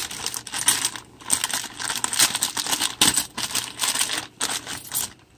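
Clear plastic parts bag crinkling as it is handled, with the small metal fuel petcock inside clinking against it. There is a dense run of crackles and clicks that dies away shortly before the end.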